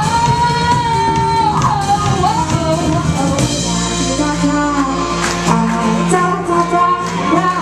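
A band playing a song live with a singer, the voice holding a high wavering line over the first few seconds before the melody drops lower.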